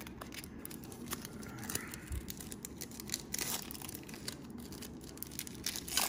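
Panini Prizm basketball trading cards being handled and flipped through, with plastic crinkling: a run of soft rustles and small irregular ticks, a little louder about three and a half seconds in and again near the end.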